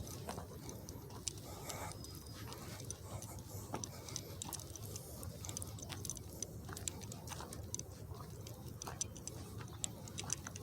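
Footsteps on a dry woodland trail: irregular light crackles and clicks of leaf litter and twigs underfoot over a low outdoor background.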